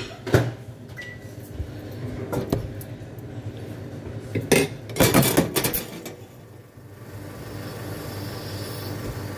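Crockery and utensils clinking and knocking behind a café counter: a few single knocks, then a burst of clatter about five seconds in, over a steady machine hum. A steady hiss starts about seven seconds in.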